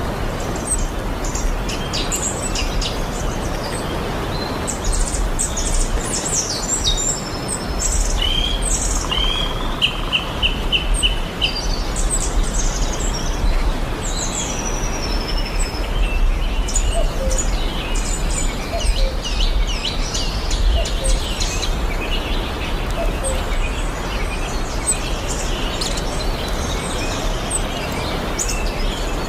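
Several wild birds chirping and calling in quick, overlapping short notes, with a run of evenly repeated notes about eight to eleven seconds in, over a steady low rumble.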